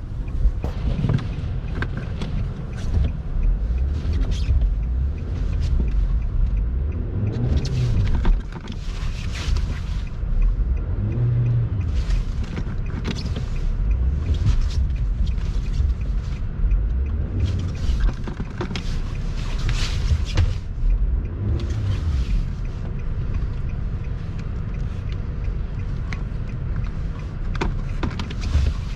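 Car engine and tyres driving through snow, a steady low rumble with the engine pitch rising several times as it accelerates, and irregular short hisses over it.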